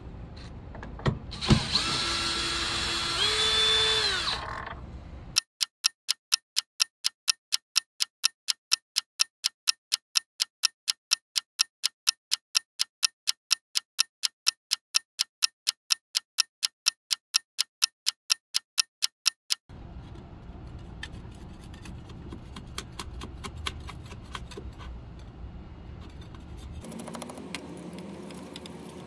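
A clock-ticking sound effect, evenly spaced sharp ticks about three a second for roughly fourteen seconds over dead silence. Before it a power tool's motor whirrs briefly, rising in pitch; after it comes a low steady hiss with small clicks.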